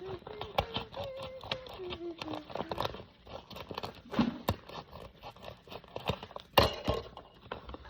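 Packaging being cut open and handled: a dense run of small clicks and crinkles, with a louder knock about six and a half seconds in. A voice hums softly for the first three seconds.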